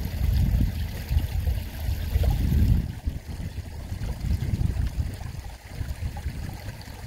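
Wind buffeting the microphone in uneven gusts: a low rumble that swells and fades, with a faint hiss that stops about three seconds in.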